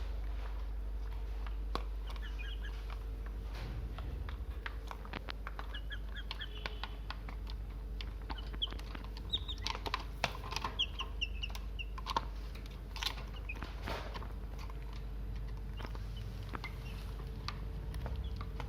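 Four-month-old chickens eating: many sharp pecking taps, with bursts of short high chirping calls that are busiest around the middle.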